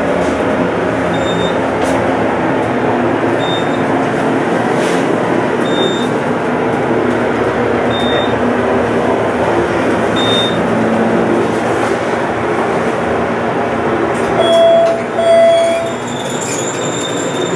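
Innovation traction elevator cab in motion: a steady rush and rumble of travel inside the car, with short high beeps about every two seconds. Near the end two chime tones sound and the ride noise drops as the car comes to a stop.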